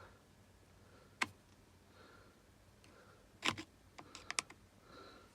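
Faint handling clicks and taps of small tools against the tool's plastic housing and terminals while probing for power: one sharp click about a second in, then a quick run of clicks about three and a half to four and a half seconds in.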